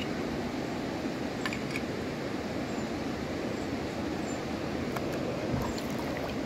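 River water flowing steadily around the wader, a constant rushing hiss, with a few light clicks and faint high bird chirps over it.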